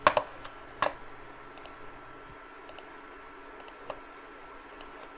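Computer mouse clicking: two sharp clicks near the start, then a scattering of fainter clicks.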